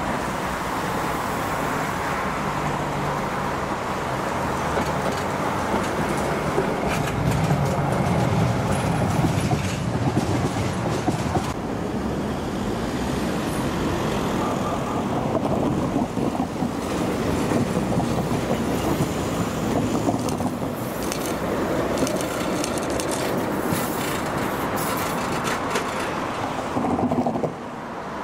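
E1 tram running on its rails: a steady rumble of wheels on track with scattered clicks and rattles.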